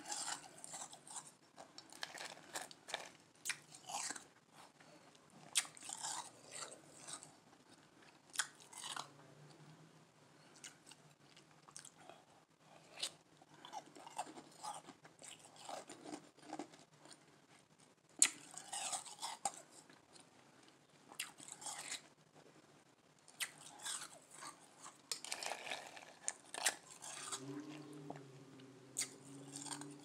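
A person biting and chewing soft Igloo ice, crisp crunches coming in irregular clusters with short pauses between bites.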